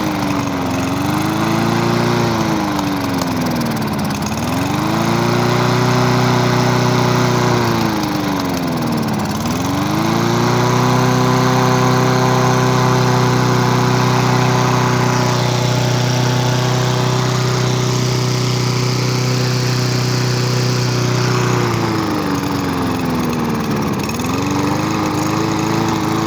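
Small walk-behind lawnmower engine running, its speed sagging and picking back up three times in the first ten seconds, then holding steady for about twelve seconds before sagging once more near the end. The uneven running is on a mower whose owner says it needs a new carburettor.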